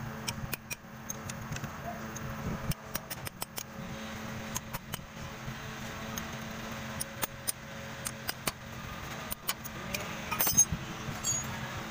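Metal hand tools clinking and tapping irregularly against the steering cylinder's rod-end fittings as they are worked loose by hand, over a steady low hum.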